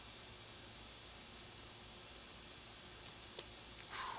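Steady, high-pitched chorus of insects, slightly wavering, with one faint click a little over three seconds in.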